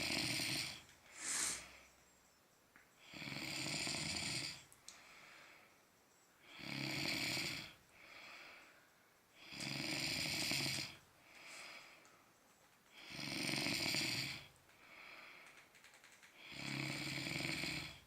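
A sleeping person snoring heavily: a long, loud rasping snore on each breath in, about every three and a half seconds, with a softer breath out between.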